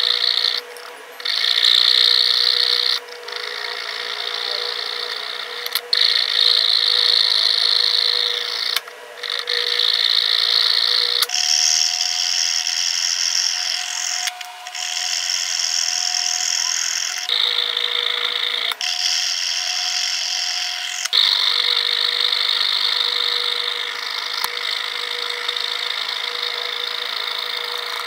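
Fine-bladed fret saw rasping steadily through a block of PVC plastic, a high scratchy sound that shifts abruptly in tone several times.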